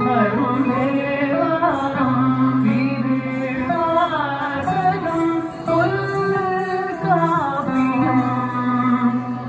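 Indian classical-style dance song: a woman singing a gliding melody over instrumental backing and a steady low drone.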